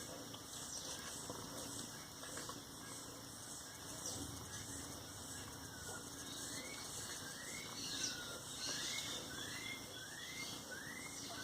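A bird chirping in a regular series of short rising calls, about one and a half a second, starting about six seconds in.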